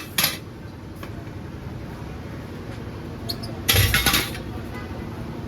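Power tool cutting into a motorcycle exhaust to remove its catalytic converter, running steadily, with a brief loud burst right at the start and a longer one about four seconds in.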